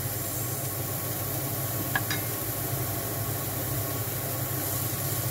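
Dried shrimp, garlic and onion sizzling in oil in a frying pan, over a steady low hum from a kitchen exhaust fan; a single short click about two seconds in.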